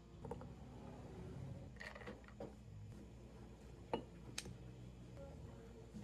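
Quiet café counter work: a few light clicks and taps of a glass and utensils being handled, over a low steady room hum. The sharpest click comes about four seconds in.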